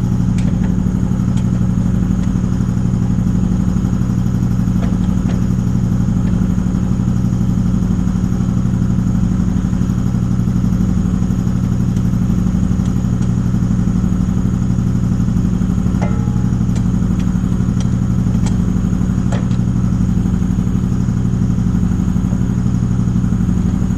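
Truck engine idling steadily inside the shop, with a slow, regular pulse in its low drone. A few light metallic clinks come through in the second half.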